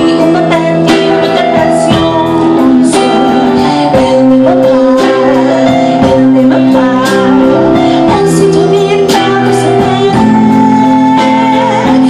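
Live band music: a woman sings over bowed cello, electric guitar, bass guitar and keyboard, with regular percussion hits.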